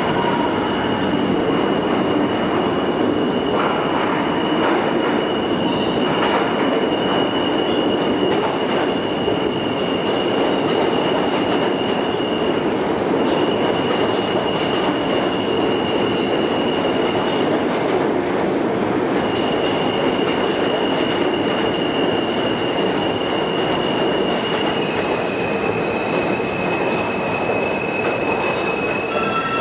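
R160A subway train pulling into an underground station: a steady rumble of steel wheels on rail with a high squeal that holds through most of the pass, breaking off twice. Near the end the squeal drops a little lower as the train slows to a stop.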